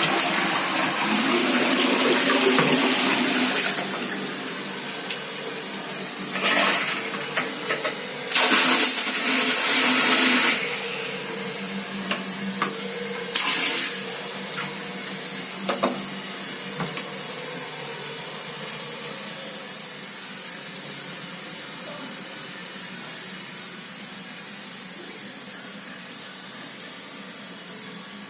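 Toilet being flushed: water rushing out of the cistern, then a long, slowly fading run of water as the tank refills, with a couple of brief louder hisses partway through.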